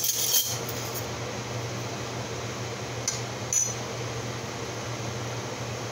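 Light clinks of kitchenware in the first half-second and twice more about three seconds in, over a steady low hum.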